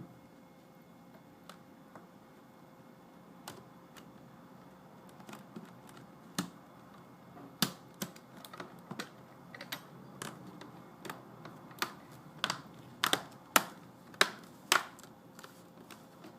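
Irregular sharp plastic clicks and taps from handling a laptop's screen assembly as it is fitted back in place. A few clicks come at first, then they come thicker and louder from about halfway through.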